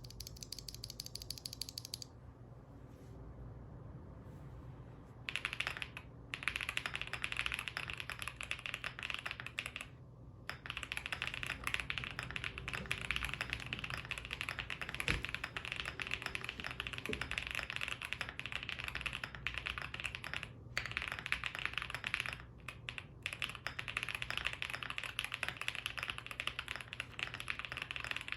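Typing on a mechanical keyboard with lubed Gazzew Boba U4T tactile switches: a dense run of keystroke clacks that starts a few seconds in and runs on with a few short pauses.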